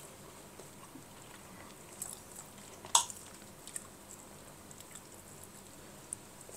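Quiet eating at the table: faint chewing of rice and jengkol, with a few light clicks, the sharpest about three seconds in.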